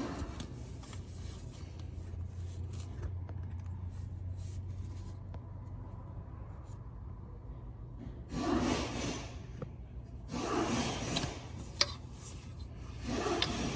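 Rubbing and scraping of hands and clothing against engine parts while working in a tight space, in three short bursts in the second half, over a low steady hum.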